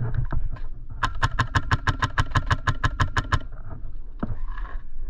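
Airsoft gun firing a steady full-auto burst of about sixteen shots, roughly seven a second, for over two seconds. A few scattered single clicks come before it and one after.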